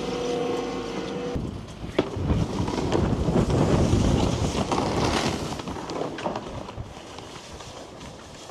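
A steady machine hum that cuts off about a second and a half in, then wind buffeting the microphone over a snowboard sliding and scraping on snow, easing off toward the end.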